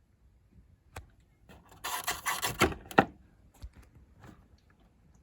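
Hands handling computer hardware: a single click about a second in, then about a second and a half of rubbing and scraping that ends in a sharp click, followed by a few faint ticks.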